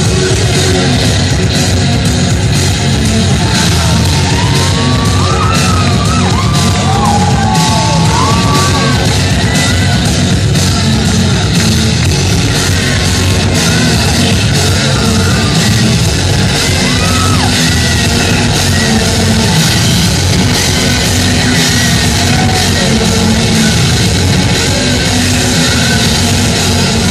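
Loud rock music with vocals.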